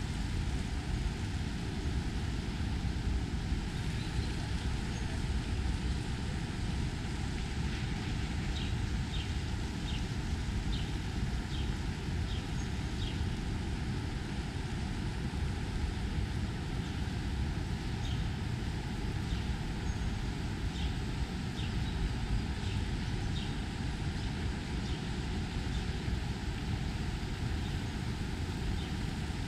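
Steady rumble of city road traffic on a wide avenue, with runs of short high chirps heard over it in the middle stretch.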